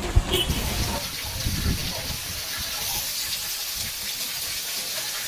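Steady rush of fast-flowing water, such as a flooded, overflowing stream, with one sharp knock just after the start.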